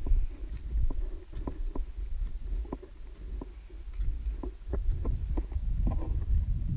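Crampon-spiked boots crunching into firm snow at a walking pace, about two to three sharp steps a second, with a trekking pole planting in between, over a low rumble on the microphone.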